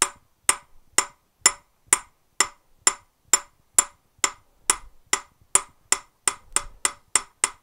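Ball-pein hammer striking a drift against the end of a David Brown 990 PTO shaft, driving the shaft out of its bearing: a steady run of sharp metallic knocks, each with a brief ring, about two blows a second and quickening near the end.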